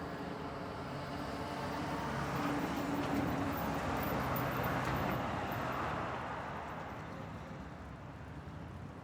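Road traffic on a curve: a passing vehicle's engine hum and tyre noise builds, is loudest around three to five seconds in, then fades away over a steady traffic background.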